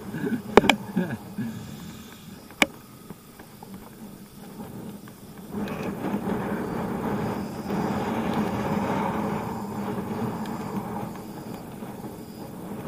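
Air rushing over the camera microphone and tyres running on rough asphalt as the bike rides along. The rush builds about five seconds in, after a brief voice and two sharp clicks at the start.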